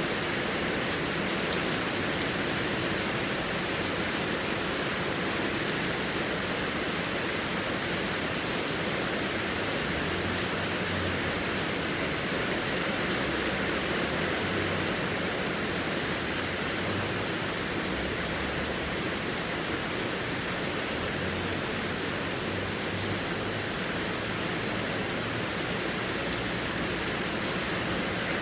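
Heavy rain falling steadily, a dense even hiss of drops with no separate patters.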